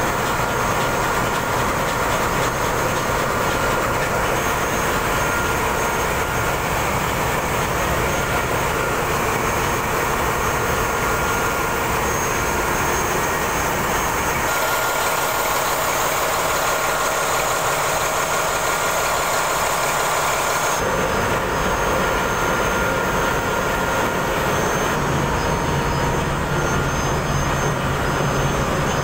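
Ship's engine-room diesel machinery running: a loud, steady mechanical din with a few thin, steady high whines over it. The mix of the din changes twice, about halfway and about two-thirds of the way through, and a low hum comes in near the end.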